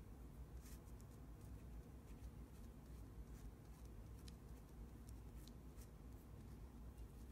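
Dried masking fluid being rubbed and peeled off watercolour paper with fingertips: faint, scattered little crackles and ticks at irregular times over a low background hum.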